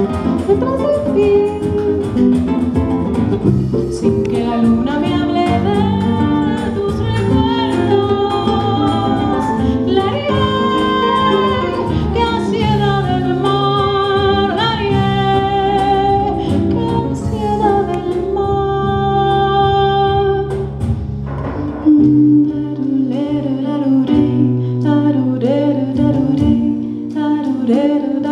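A woman singing a jazz-inflected Colombian-Brazilian song, accompanied live by acoustic guitar, electric bass and percussion.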